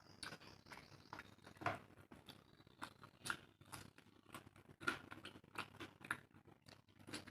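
Close-miked chewing of rice and curry: faint, irregular wet clicks and smacks of the mouth at work.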